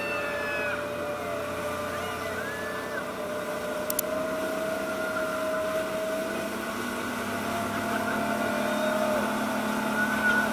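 Small ferry boat's engine running hard at speed, a steady drone whose pitch wavers slightly, with water rushing along the hull; it grows a little louder toward the end.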